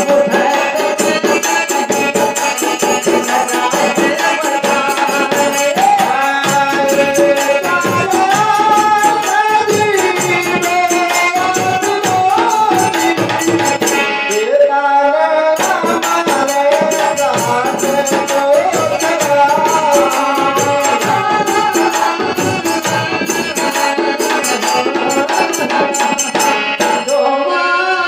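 Bagheli folk Ramayan singing: a voice sings a melodic line over steady held instrumental tones, with fast, regular hand percussion.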